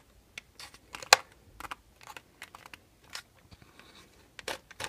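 Irregular small clicks and taps of hand tools and small RC truck parts being handled, with the sharpest click about a second in and a quick cluster near the end.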